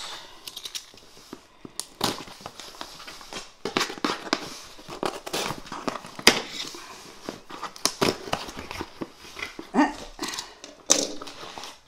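Wrapping being pulled off a packed item by hand: irregular crinkling and rustling with sharp little crackles and snaps.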